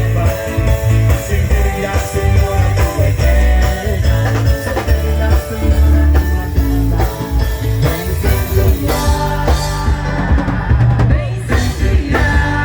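Live band playing a rock-style song, with drum kit and heavy bass to the fore.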